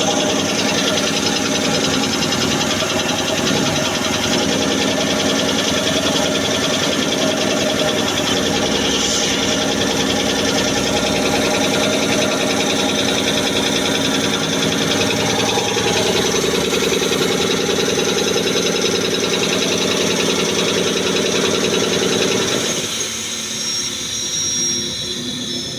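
High-pressure six-cylinder air compressor running steadily, a dense mechanical drone. Near the end the low part of the sound cuts out abruptly and a lighter, uneven running sound remains.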